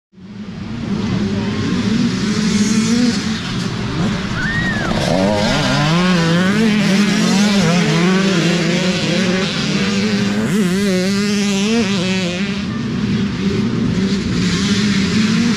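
Several dirt bike engines running and revving together, their pitch rising and falling throughout. The sound fades in over the first second.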